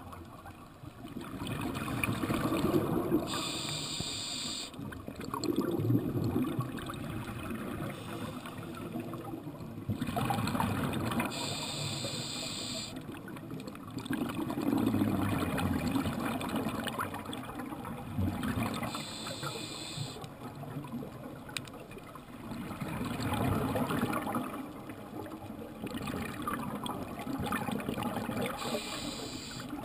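Scuba diver breathing through a regulator, heard underwater: a short hissing inhale about every eight seconds, four in all, each followed by a longer gurgling rush of exhaled bubbles.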